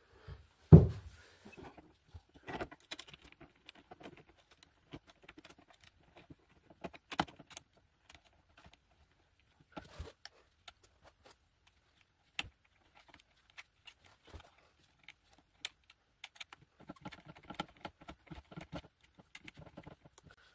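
Handling noise of a 3D printer's touchscreen and its metal mounting bracket being fitted to the side of the printer's aluminium frame: scattered clicks, taps and rattles. A louder thump comes about a second in, and a quick run of small clicks near the end.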